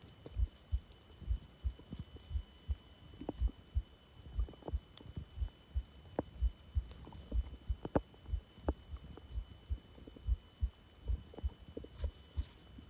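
A heartbeat thumping steadily about twice a second, heard close up through the body, with a few faint, short stomach gurgles between the beats. A steady high-pitched electronic whine runs underneath.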